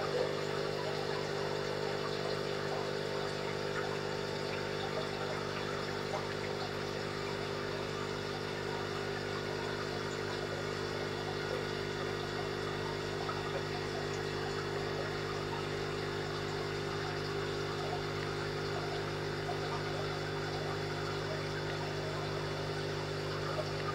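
Aquarium filter pump running with a steady hum, under a continuous light trickling and bubbling of water.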